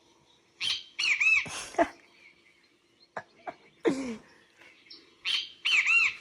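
Great kiskadee (bem-te-vi) call given twice, the same three-part 'bem-te-vi' phrase each time, with a short lower falling sound between the two calls.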